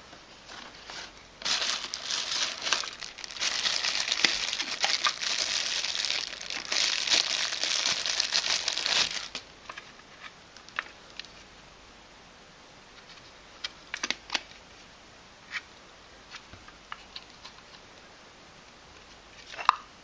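Plastic packaging wrap crinkling loudly for about eight seconds as a packed accessory is unwrapped. After that come scattered light clicks and taps of the hard plastic part being handled.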